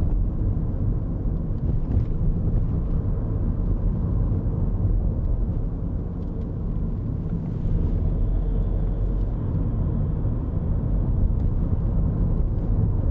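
Steady low road and engine rumble heard inside the cabin of a moving Honda car.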